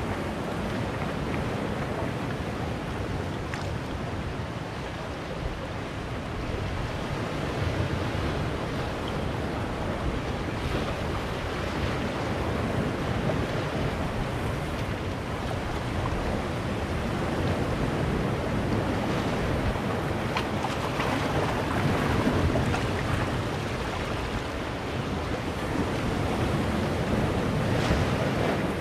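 Sea waves breaking and washing in among boulders on a rocky shore, a continuous rush of surf that swells and eases as each wave comes in.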